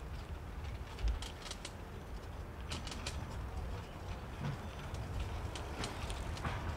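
Bicycle being ridden over paved path: irregular clicks and rattles from the bike over a steady low rumble of wind and road, with one louder thump about a second in.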